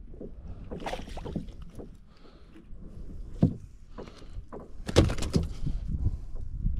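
Irregular knocks and bumps on a fishing kayak as gear and hands move about aboard, over a low rumble; a sharp knock comes about three and a half seconds in, and the loudest knocks about five seconds in.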